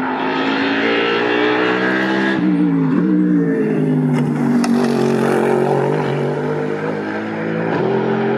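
Racing car engine at speed, its pitch dropping sharply about two to three seconds in, as on a lift or downshift, then pulling steadily again.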